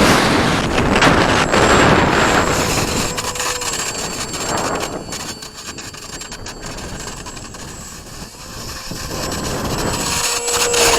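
Strong wind buffeting the microphone, dropping off about five seconds in and building back up near the end.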